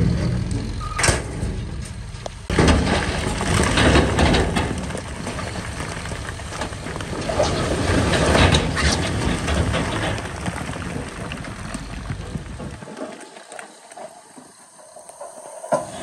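Heavy earthmoving machinery at work: a bulldozer or dump truck diesel engine running, with rumbling and clattering that fits rock being tipped and pushed, and a few sharp knocks in the first few seconds. The sound drops away and gets quieter for the last few seconds.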